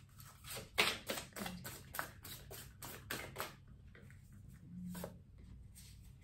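A deck of tarot cards being shuffled by hand, cards slapping and sliding against each other in a quick, uneven run of soft clicks, about three or four a second, the loudest about a second in.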